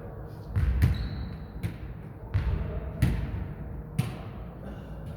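Jokgu ball being kicked and bouncing on the court during a rally: about six sharp thuds a half second to a second apart, each with an echoing tail.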